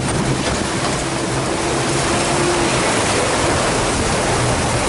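Steady rush of sea water churning along the hull and in the wake of a boat under way, with the boat's engine humming underneath. A higher steady hum stops a little past halfway.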